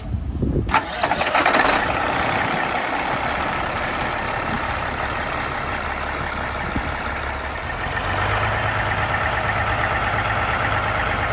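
Turbocharged Caterpillar 6NZ (C15) diesel truck engine cranks and starts about a second in, then settles into a steady idle. A deeper low hum comes in about eight seconds in.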